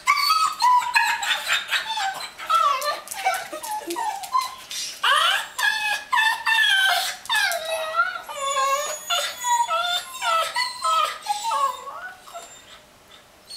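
A dog whining and yowling in long cries that rise and fall, almost without pause until they die away near the end: excited begging to be taken for a walk.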